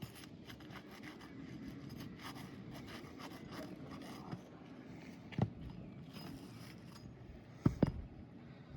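Asphalt roof shingles being scraped and rustled as they are worked loose by hand, with a sharp knock about five seconds in and two quick knocks near the end. The shingle has already begun to reseal in the heat.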